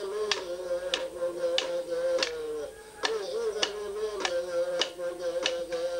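A man chanting a Tiwi Kulama ceremony song in long, wavering held notes, with sharp percussive strikes keeping a steady beat about every two-thirds of a second.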